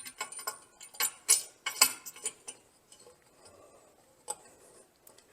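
Steel locking pin being fitted into a hitch-mounted spare tire carrier, metal clinking on metal: a run of sharp clinks in the first two seconds or so, then fainter knocks and one more clink about four seconds in.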